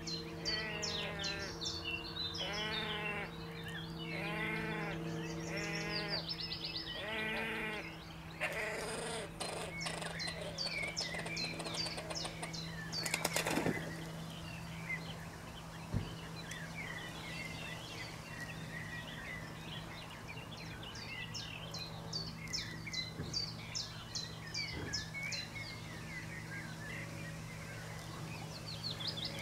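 Great crested grebe giving a series of about five calls in the first eight seconds, over songbirds chirping and a steady low hum. The songbird chirps pick up again in the second half.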